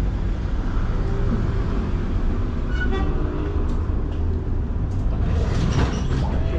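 Steady low rumble of a tram running, heard from inside the passenger car. About three seconds in there is a short ringing tone, and around five to six seconds a louder hissing rattle.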